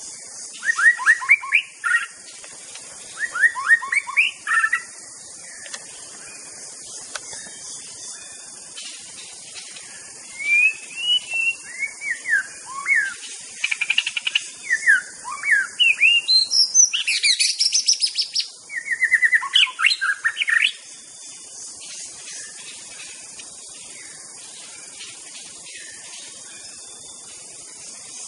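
White-rumped shama (murai batu) singing: loud phrases of varied whistles, slurred sweeping notes and quick trills, in two spells with a pause of several seconds between them. Beneath it runs a steady high hiss, which is all that remains once the song stops a little after two-thirds of the way through.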